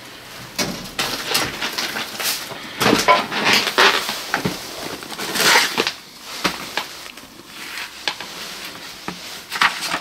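Irregular crunching and crackling: a run of sharp cracks and crunches of varying loudness, with no steady rhythm.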